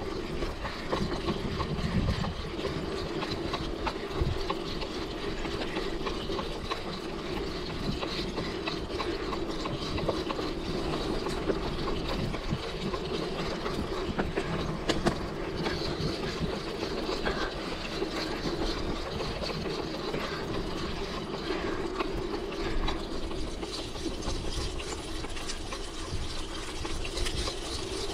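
Mountain bike riding along a dirt trail: steady tyre and ride noise dense with rattling and fast ticking from the chain, frame and freewheel ratchet.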